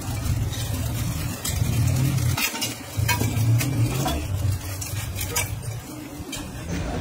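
Steel wire spokes clinking and rattling against a motorcycle's chromed steel rim as they are pushed through its spoke holes, in scattered sharp clicks over a steady low hum.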